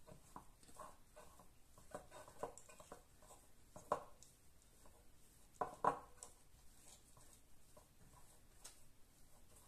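Hands kneading shaggy bagel dough in a ceramic bowl: soft, irregular rubbing and squishing of the dough, with a few knocks of hand and bowl, the loudest about four and six seconds in.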